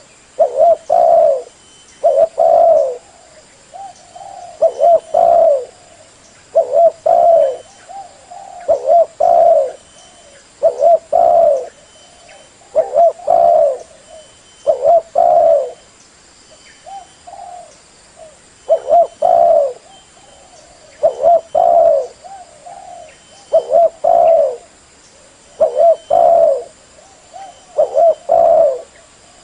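Spotted dove cooing over and over, a loud phrase of two or three low coos about every two seconds; this is the kind of call played to lure doves for hunting or trapping.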